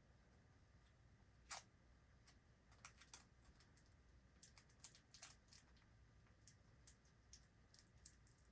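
Faint scattered clicks and taps of small plastic parts being handled as thin wires are twisted together under a wire nut, the sharpest about a second and a half in and a quick cluster around the middle.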